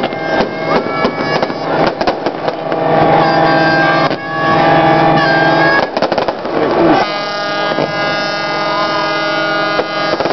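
Fireworks going off in rapid bangs and crackles over a dense layer of steady, sustained tones and crowd voices.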